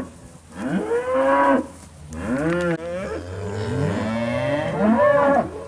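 Several Angus-cross steers mooing in a series of long, overlapping calls that slide up and down in pitch. The cattle are bawling for their feed.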